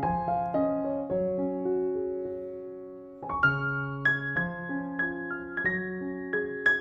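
Background music: a piano plays struck notes and chords that ring and fade, with a new phrase starting about three seconds in.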